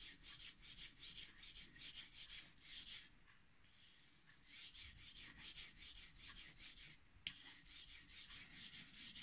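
A knife blade is stroked back and forth over a wet 2000-grit Chinese natural whetstone coated in slurry, giving a faint, quick series of scraping rubs with a short lull about three seconds in. These are sharpening passes made to raise a burr on the edge.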